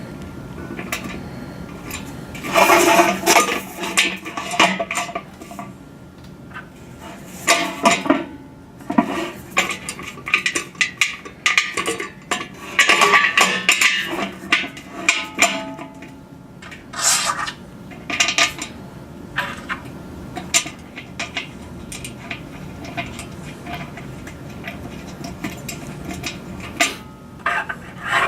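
Metal bolts, nuts and washers clinking and knocking against a steel mounting bracket as it is fitted to a dish antenna by hand, in irregular clusters of sharp clicks and clanks.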